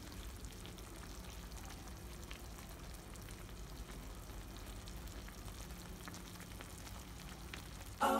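Pot of chicken noodle soup simmering on the stove, a faint steady bubbling crackle over a low hum. Singing cuts in right at the end.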